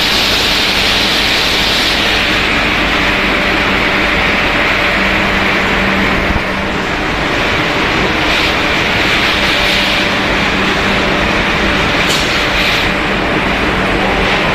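Wave chips snack production line running: loud, steady machine noise with a low hum underneath, from the mesh-belt conveyor and its motors.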